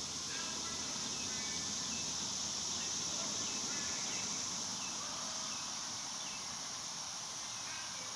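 Steady high-pitched outdoor insect chorus, with faint short chirps scattered through it.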